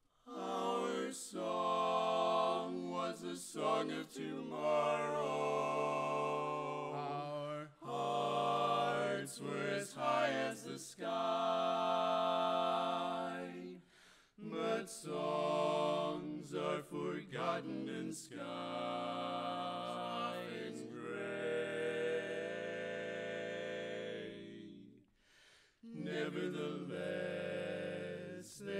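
Barbershop quartet of four men singing a cappella in close harmony: held chords broken by short pauses every few seconds.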